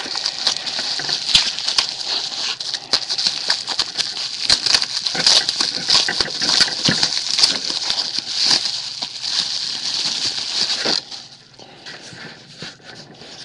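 A mailed package being opened by hand: continuous crinkling, rustling and tearing of the packaging, full of sharp crackles, which stops about eleven seconds in and gives way to a few faint handling clicks.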